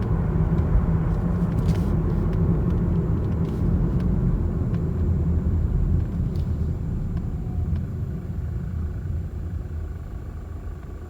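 Mazda CX-30 XD's 1.8-litre turbodiesel car on the move: steady low engine and road rumble with a faint, steady whistle-like tone. This is the recorder-like whistle the owner reports at speed, which repeated parts replacements have not cured. The sound grows quieter over the last few seconds.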